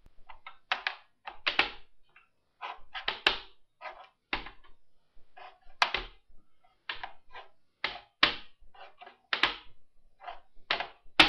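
Rapid clacks of wooden chess pieces being set down on the board and the chess clock's buttons being slapped, move after move, several a second: a blitz game played out in time trouble.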